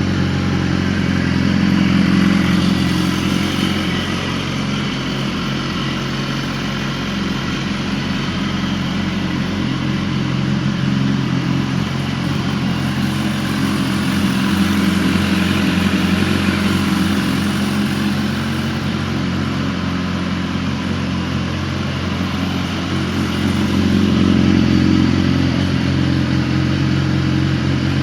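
A 2014 BMW HP4's inline-four engine idling steadily through its stock exhaust with the baffle insert removed. Its loudness swells slightly a few times.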